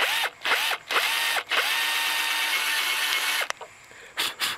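Cordless drill with a countersink bit spinning up in three short pulses, then running steadily for about two seconds as it bevels a screw hole in a hardwood transition strip. Two quick blips of the drill follow near the end.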